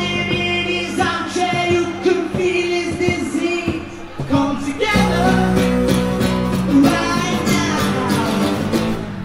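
Live acoustic band performance: acoustic guitars strummed while a vocalist sings. About five seconds in, the playing grows fuller and louder.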